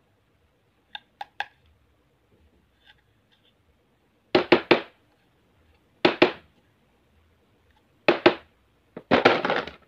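Plastic shrink-wrap on a pack of stationery tape rolls crinkling as it is handled: a few faint clicks about a second in, then short loud crackles in twos and threes, and a longer crackle near the end.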